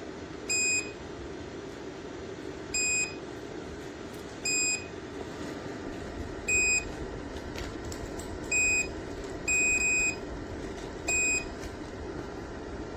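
A JIBUFI 1500W PTC portable space heater's control panel beeping seven times at irregular intervals, one beep about twice as long as the others, over the steady whir of its fan. These are the button-press beeps you hear when changing modes or settings.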